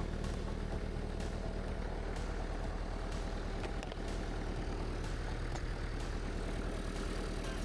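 Kubota tractor's diesel engine running steadily, with occasional light ticks over the hum.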